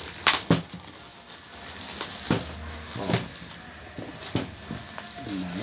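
Thin clear plastic shoe bag crinkling and rustling as it is torn open and a leather shoe is pulled out, with a handful of sharp crackles, the loudest just after the start.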